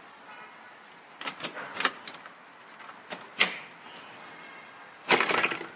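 Decorative trim cover being worked loose from a vehicle's interior roll-bar upright by hand. Sharp clicks and knocks of the cover coming free about a second in, two more around three seconds in, and a denser clatter near the end.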